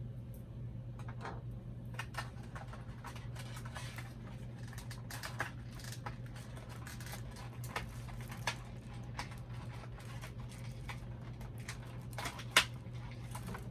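Small plastic doll accessories and packaging being handled: scattered light clicks and crinkles, with one sharper click near the end, over a steady low hum.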